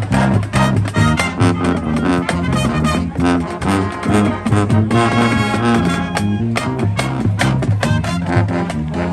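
High school marching band playing its show: brass and percussion with a steady driving beat.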